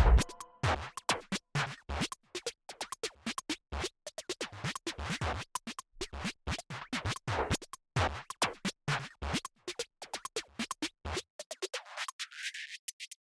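Electronic background music in a sparse, quiet break of short, choppy stabs with scratch effects. The bass drops out for the last couple of seconds before the full beat returns.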